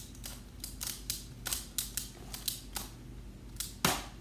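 Plastic Skewb puzzle being turned fast: an irregular run of sharp clicks as the layers twist, with one louder knock near the end.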